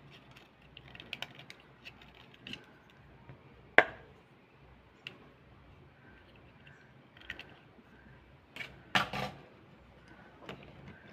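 Utility knife blade scraping and shaving a slate pencil: scattered short scratches and clicks, with one sharp click about four seconds in and a cluster of louder scrapes near nine seconds.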